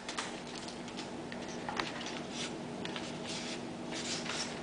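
Soft, scattered rustling and brushing of trading cards being handled and slid apart just after a foil pack is opened, over a faint steady electrical hum.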